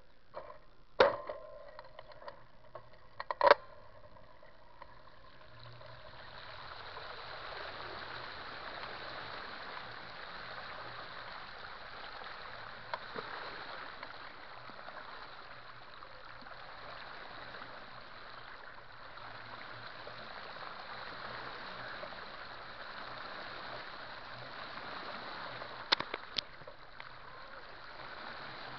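Floodwater in a swollen creek rushing steadily, rising about five seconds in and holding. A few sharp knocks stand out in the first four seconds and again near the end.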